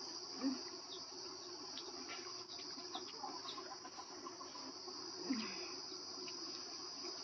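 Steady high-pitched chirring of crickets or similar insects, with a few faint ticks and two brief low sounds, about half a second in and a little after five seconds.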